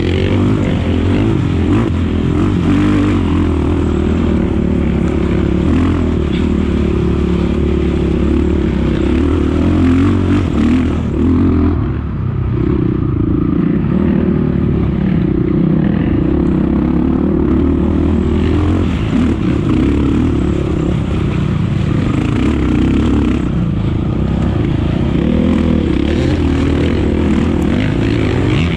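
Off-road racing motorcycle's engine running hard, its pitch rising and falling constantly with the throttle.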